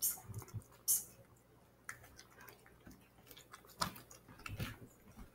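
Cat eating wet food from a dish: irregular wet smacks and chewing clicks, with two sharper clicks in the first second.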